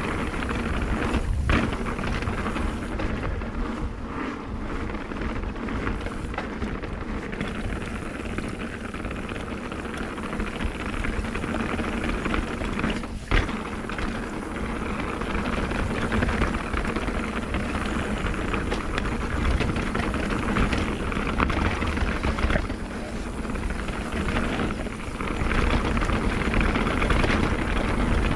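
Mountain bike descending a dry dirt trail: steady tyre noise and rattling from the bike under heavy wind buffeting on the microphone, with two sharp knocks, one about a second in and a louder one about halfway through.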